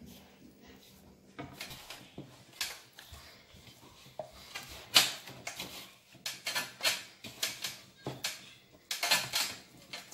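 Flour-and-water dough being mixed and kneaded by hand in a bowl: irregular sticky squelches and slaps, with the dough knocking against the bowl, and a quick run of slaps near the end.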